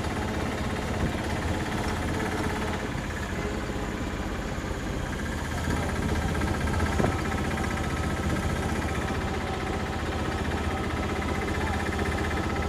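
Auto-rickshaw engine running steadily as it drives along a village road, heard from inside the open passenger compartment.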